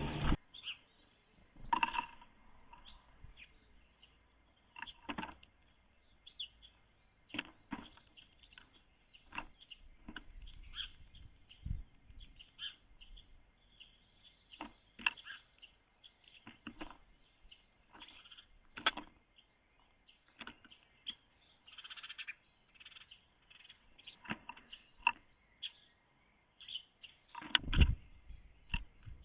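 Birds at a 3D-printed feeder birdhouse, picked up by the birdhouse camera's own microphone: irregular taps and knocks, the loudest about two seconds in and near the end, with scattered bird chirps.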